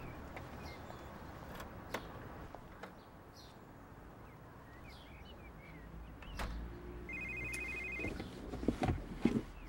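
A telephone ringing with a fast electronic trill: one ring of about a second, starting about seven seconds in, and the next ring just beginning at the end.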